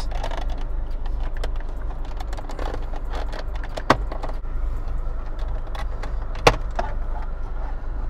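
Plastic center-console trim of a 2009 Toyota Corolla being pried loose by hand: small rattles and clicks as it is wiggled. Two sharp snaps, about four and six and a half seconds in, are the trim's retaining clips popping free. A steady low hum runs underneath.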